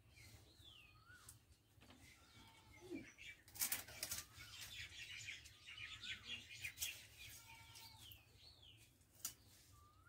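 Birds chirping in short calls. From about three and a half to seven seconds in comes a quick run of scraping and clicking as bird meat is cut and cleaned on an upright floor blade, with a single click near the end.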